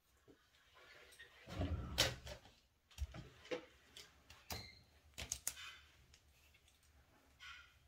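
Handling sounds: a brief rumble of handling about a second and a half in, then a series of light knocks and clicks as hair-care items are picked up and handled, with a short soft hiss near the end.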